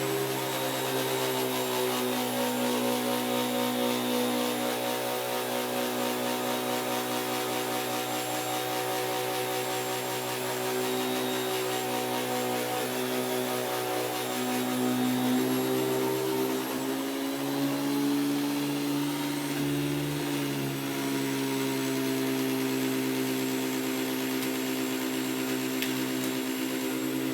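Vacuum cleaner motor running steadily with a whining hum, its pitch shifting now and then as the airflow changes, most noticeably from about seventeen to twenty-one seconds in.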